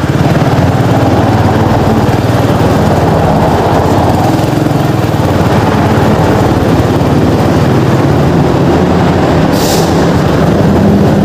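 Honda motor scooter's engine running steadily at low speed under way.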